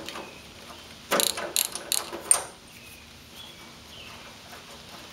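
Ratchet wrench with a 13/16 spark plug socket clicking in a quick run of about six clicks, from about one to two and a half seconds in, while a spark plug is being loosened from the engine.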